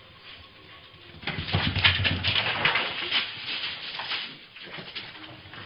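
A corgi scrabbling among shoes on a tiled entryway floor: a dense burst of scuffing and clattering from about a second in until about four seconds in, then fainter.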